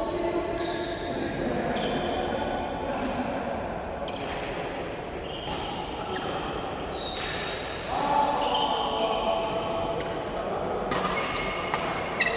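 Badminton rackets smacking shuttlecocks in rallies on several courts, sharp irregular hits echoing in a large sports hall, with short squeaks of shoes on the court floor and players' voices in the background.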